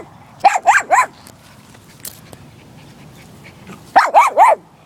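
A puppy barking at a turtle: three quick barks about half a second in, a pause, then a rapid run of about four barks near the end.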